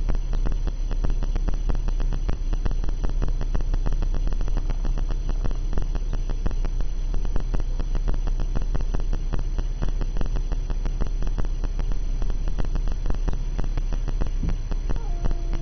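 Steady mechanical hum with fast, even ticking. About a second before the end, a faint, drawn-out cat yowl begins, slowly falling in pitch.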